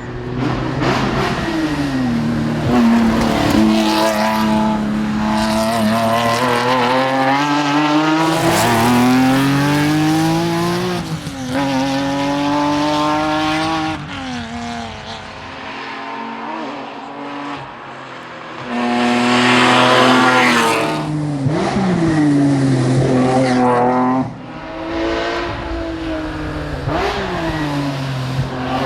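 Porsche 996 911 GT3's naturally aspirated flat-six engine driven hard, its pitch climbing under acceleration and dropping sharply at each gear change, several times over, with a quieter stretch of lifting off before it pulls hard again.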